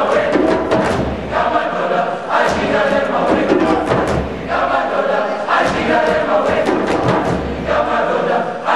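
Large mixed choir of boys' and teenagers' voices singing a rhythmic chant-like song, in short phrases that break off and start again every second or two.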